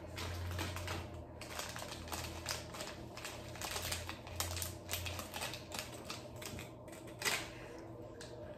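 Plastic candy wrapper crinkling close to the microphone in quick, irregular crackling clicks, with a louder crackle about seven seconds in.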